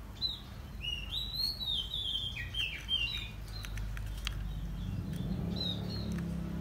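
A small bird chirping a quick run of sliding notes during the first three seconds. A low steady hum comes up in the last couple of seconds.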